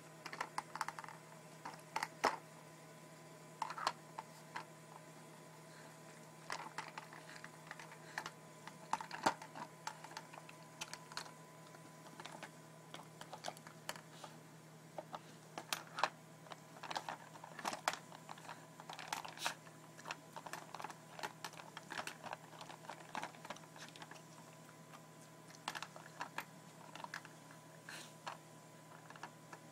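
Hard plastic clicks and clatters from an Aikiou puzzle feeder as a dog noses and shoves its sliding covers and compartments. The clicks come irregularly, singly and in short rattling runs.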